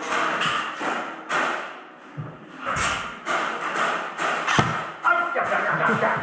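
Airsoft guns firing and BBs hitting walls and cover: irregular sharp thuds and snaps, the loudest about four and a half seconds in.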